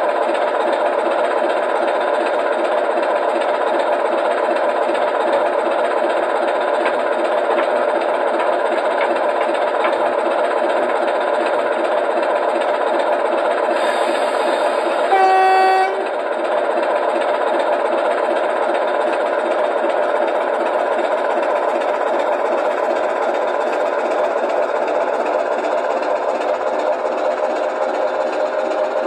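ESU LokSound v5 sound decoder in an O gauge model Class 26 locomotive playing a Sulzer diesel engine idling steadily through the model's small speaker. About halfway there is a short hiss and then a horn blast of about a second. The locomotive then moves off with the engine held at idle, with no rise in revs, as a lightly loaded diesel-electric does.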